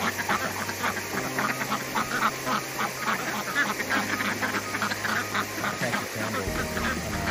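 A flock of domestic ducks, Pekins, khaki Campbells and runners among them, quacking and chattering in many short, overlapping calls while they bathe and splash in a shallow pool of water.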